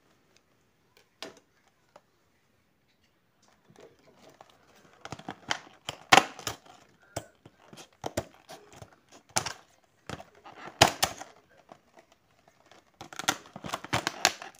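Plastic blister packaging being opened: irregular crinkling and crackling of stiff clear plastic with sharp snaps and clicks. It is nearly quiet for the first few seconds apart from a single click.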